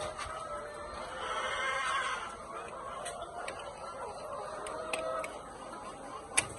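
A flock of chickens clucking and calling, busiest about one to two seconds in, with a sharp click near the end.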